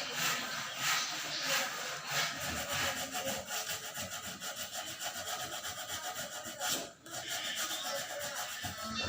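Hand sanding with sandpaper, back-and-forth rubbing strokes on a hard surface. The strokes are slower and broader at first, then turn into fast, short scraping with a brief pause near the end.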